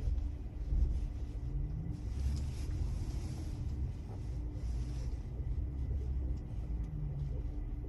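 2022 Polestar 2 Performance, a dual-motor electric car, moving slowly with a steady low rumble and a rising tone about two seconds in. This is the low-speed turning in which the owner reports a knocking noise from the car.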